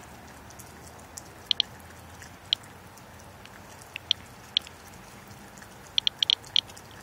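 Medcom Inspector USB Geiger counter chirping once for each detected count: about a dozen short high clicks at random intervals, several bunched together near the end. The rate matches its reading of about 150 counts per minute on the rain-wetted car hood, almost four times background.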